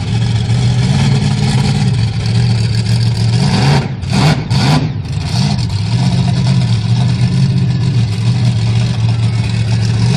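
Monster truck engine revving up and down as the truck climbs onto and drives over a row of cars, with a short burst of harsh noise about four seconds in.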